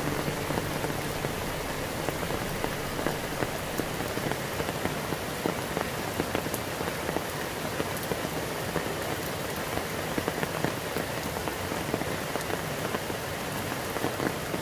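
Steady rain falling, with many separate raindrops ticking on surfaces.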